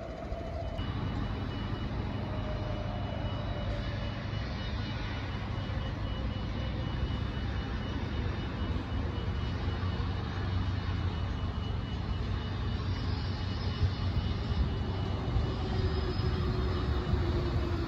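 Transperth electric multiple-unit train approaching along the line: a steady low rumble, with a motor whine that slowly falls in pitch through the second half as the train comes in.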